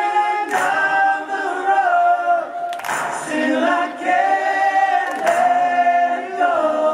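Male vocal quartet singing a cappella in close harmony, holding long sustained chords that shift to new ones every two to three seconds, with a high falsetto line on top.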